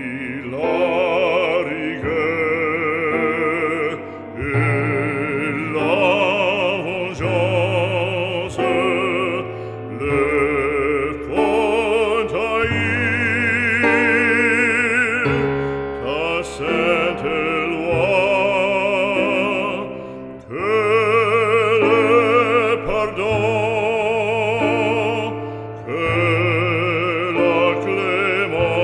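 Operatic classical singing with a wide vibrato on long held notes, over piano accompaniment.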